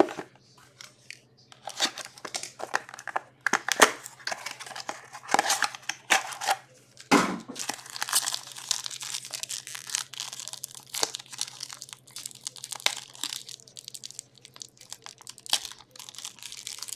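SP Game Used hockey card pack wrappers being torn open and crinkled by hand, a string of irregular crackling rips and rustles, over a faint steady low hum.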